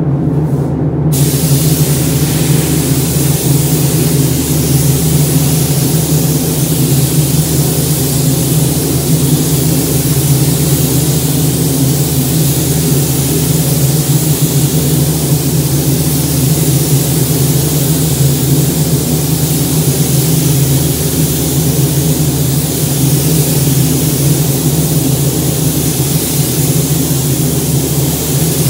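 Paint booth ventilation running with a steady low hum under a continuous hiss of rushing air; the hiss comes on about a second in and then holds steady.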